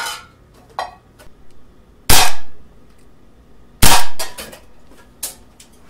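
Two shots from an Umarex Makarov Ultra 4.5 mm CO2 blowback BB pistol, about two seconds in and again under two seconds later, fired at a steel soup can. The second shot knocks the can over, and a lighter knock follows near the end. The BBs do not punch through the can, which the owner puts down to a loss of power on his second CO2 cartridge.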